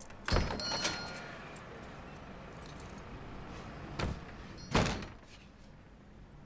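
Keys jingling at a wooden, glass-panelled door, with metallic ringing, just after the start. Then a sharp click about four seconds in and a heavier knock of the door or its latch a moment later.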